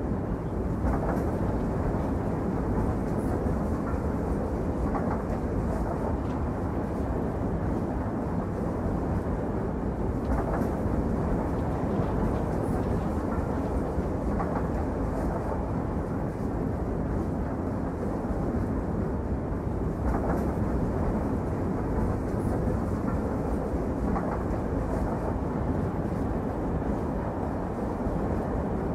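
Train running steadily along the track: a continuous low rumble with faint, irregular clicks from the wheels over the rails.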